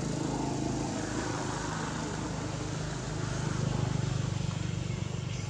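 A steady engine hum that grows louder about three seconds in, as of a motor vehicle or aircraft passing.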